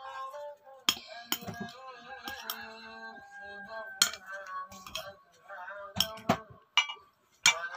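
A metal spoon clinking against dishware several times while eating, with music playing in the background.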